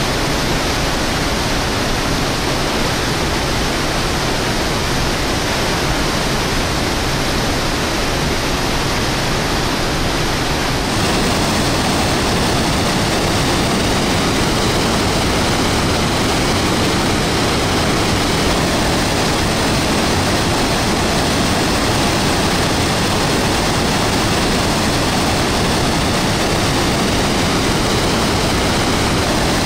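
The Rhine Falls, a large waterfall, rushing: a loud, steady noise of falling and churning water. It grows a little louder and hissier about eleven seconds in.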